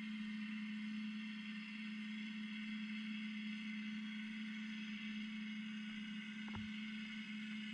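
Underwater ambience picked up by a GoPro in its waterproof housing: a steady low hum under an even hiss, with a faint click about six and a half seconds in.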